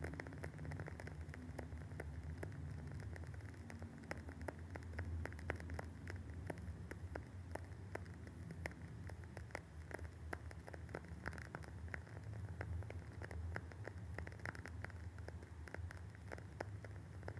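Wooden candle wick burning with continuous fine, irregular crackling and popping, over a low steady hum.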